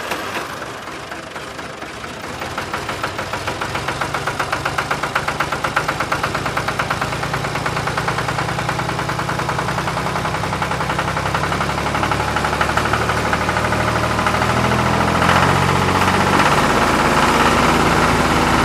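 Tractor-like engine running with a steady chugging beat, getting louder over the first few seconds and then holding even.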